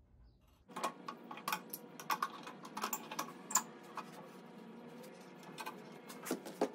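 Irregular light clicks and knocks of a metal clamp and wooden boards being handled and set against a wooden cabinet, a dozen or so sharp taps at uneven intervals.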